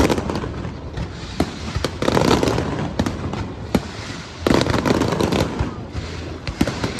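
Aerial fireworks going off: a dense run of booms and crackling pops, with a loud volley of bursts about four and a half seconds in.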